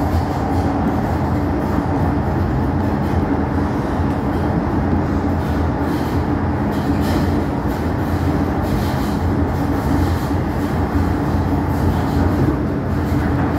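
Metro-Cammell M-Train electric multiple unit running along the line, heard from inside the car: a steady rumble of wheels and running gear with a low hum. A few faint clicks come through partway in.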